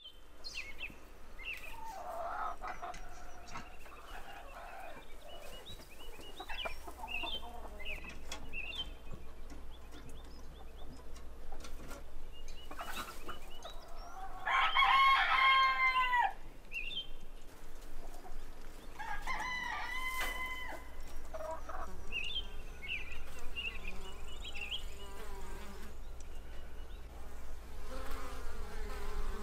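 Chickens calling in a henhouse, with a rooster crowing twice around the middle, the first crow the loudest. Near the end, honeybees buzz at a hive entrance.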